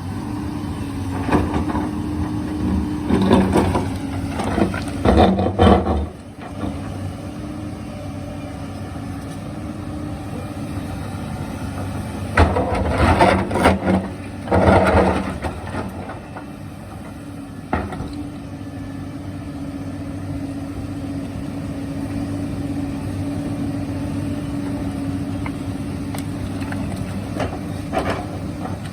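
Hyundai 220 excavator's diesel engine running steadily. Two stretches of louder, harsher noise, each a few seconds long, come near the start and about halfway through as the machine works the rock. A couple of short knocks follow later.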